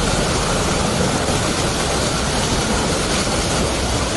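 Steady rushing noise of floodwater over a flooded road, with a low rumble underneath.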